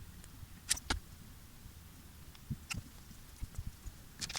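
Faint, scattered clicks and light taps of small tools and a thin cable being handled while a charger cable end is prepared for soldering.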